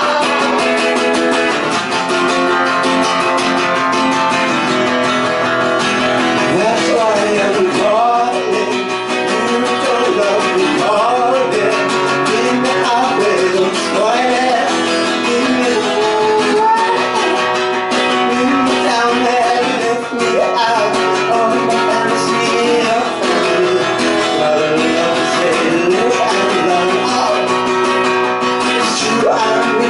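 Strummed acoustic guitar playing a stretch of the song with no sung lyrics, while a melody line slides up and down in pitch over it.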